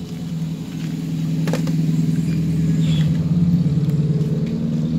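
A vehicle engine running with a steady low hum that swells from about a second in and stays loud to the end. A single sharp click comes about a second and a half in.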